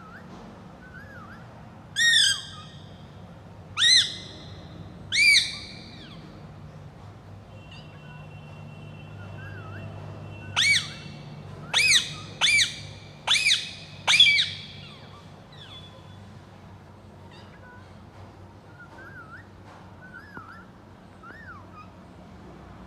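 Rose-ringed (ringneck) parakeet giving loud, shrill squawks: three spaced calls, then a quicker run of about five, with soft little chirps in between.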